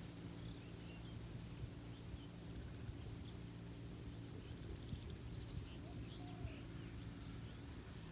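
Faint countryside ambience: insects keep up a steady high drone with a pulsing note, and birds give scattered short chirps over a steady low hum.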